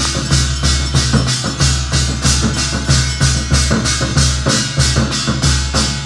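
Aarti music: a steady drum beat with a sharp percussive strike about three times a second.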